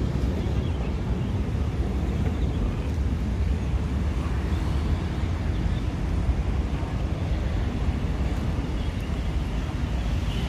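Steady outdoor background noise: a constant low rumble with a fainter hiss over it, with no distinct event standing out.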